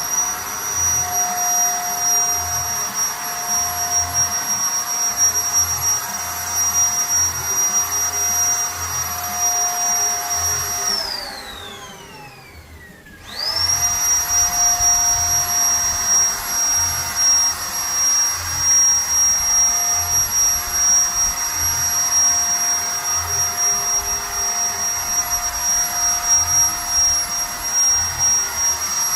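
Electric paint spray gun's motor running with a steady high whine. About 11 seconds in it is switched off and winds down with a falling pitch, then starts again about two seconds later and runs on.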